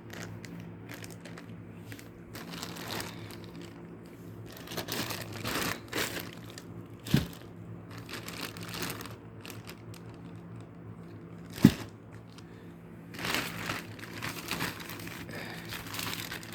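Plastic packaging crinkling and rustling in irregular bursts as sandals are handled and unpacked, with two sharp clicks, the second about 11 seconds in the loudest, and a faint steady hum underneath.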